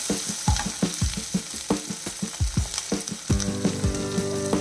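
Sliced onions sizzling in hot oil with tempered mustard seeds, urad dal, dried red chillies and curry leaves. A spoon stirs them, knocking and scraping against the pan in quick, irregular strokes. A steady hum of several tones comes in about three seconds in.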